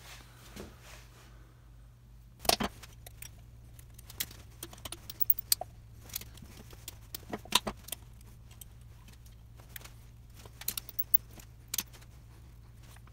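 Light metallic clicks and clinks as a valve is lifted out of a Mopar flathead engine block and handled, with a few sharper taps, over a steady low hum.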